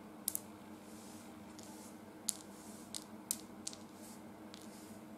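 Small cut PVC blocks set down one by one on a tabletop: a handful of light, sharp clicks, two close together near the start and the rest spread over the next few seconds, over a faint steady hum.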